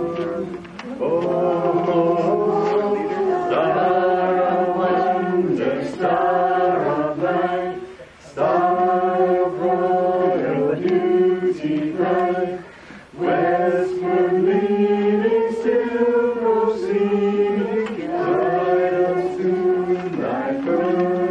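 A group of children and adults singing a Christmas carol together, line after line with short pauses between phrases.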